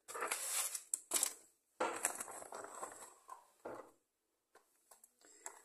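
A paper grocery bag and food packaging rustling and crinkling as items are handled, in several short bursts over the first four seconds, then near silence.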